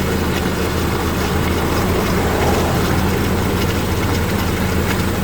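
2008 Chevy HHR's four-cylinder engine idling steadily while it is overheating a little.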